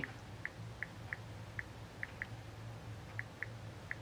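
Faint key-press ticks from a Samsung Android phone's stock touchscreen keyboard, about nine quick taps at an uneven typing pace as a search term is typed, over a low steady hum.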